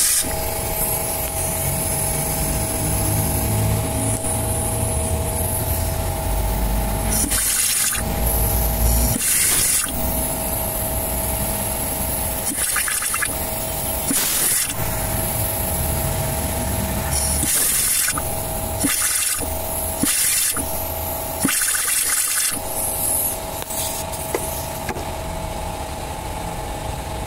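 A machine running steadily, its hum holding several fixed tones over a low rumble, broken every few seconds by short hisses.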